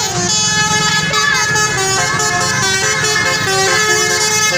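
Indonesian bus 'telolet' horn (basuri-type multi-tone air horn) playing a melody of short stepped notes, with a low engine rumble underneath.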